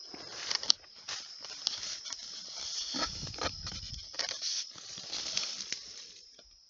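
Rustling and crackling of dry leaves and branches as people push through scrub, with irregular sharp snaps, the sharpest a little under a second in; it dies away about six seconds in. A steady high insect drone runs underneath.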